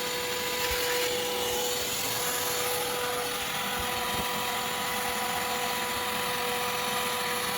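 Pressure washer running steadily: a continuous hiss of spray over an unchanging hum.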